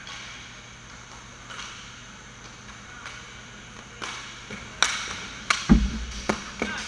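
Roller hockey play: a run of sharp clacks of sticks and puck starting a little after four seconds in. The loudest is a heavy thud about six seconds in, as the shot meets the goalie going down to make a save.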